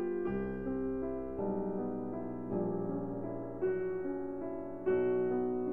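Background music: slow piano or electric-piano notes struck every half second to a second and left to ring and overlap over a changing bass note.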